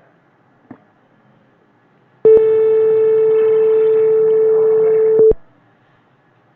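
The microwave-oven project's simulated buzzer sounding one steady, mid-pitched beep about three seconds long, starting a couple of seconds in and cutting off suddenly.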